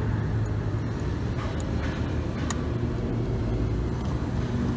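Steady low mechanical hum, engine-like, with a faint click about two and a half seconds in.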